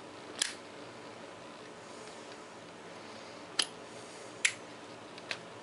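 Zippo lighter being flicked and snapped in a trick attempt, giving sharp metallic clicks: one near the start, then after a long pause two more a little under a second apart and a faint one just before the end.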